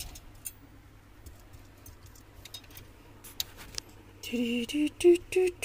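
Faint scattered clicks and taps of small objects being handled. About four seconds in, a person's voice starts in short pitched phrases without clear words, the loudest sound here.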